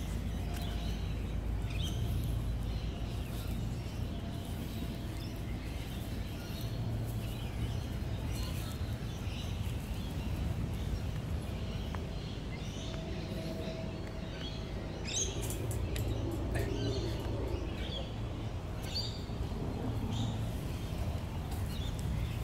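Wild birds chirping on and off, with a steady low rumble underneath and a few light clicks.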